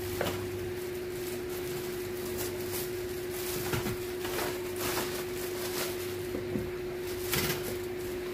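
Plastic wrapping crinkling and rustling in brief bursts as a wire electric-fan guard in its plastic bag is handled and lifted out of a cardboard box, over a steady low hum.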